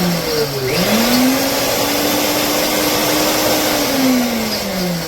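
High-speed electric grain mill running at its single fast speed: a loud motor whir whose pitch climbs about a second in, holds steady, then sinks as the motor winds down near the end.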